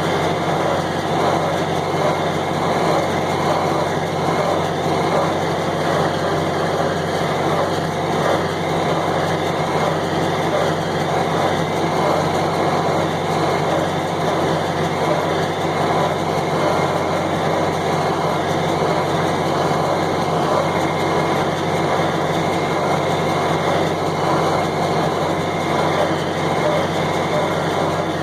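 John Deere 4020 tractor running steadily at working speed while it pulls and drives a John Deere 327 square baler.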